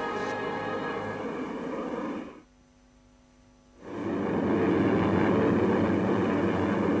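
Sustained music ending about two and a half seconds in, a moment of near silence, then the steady drone of a formation of four-engined propeller bombers in flight.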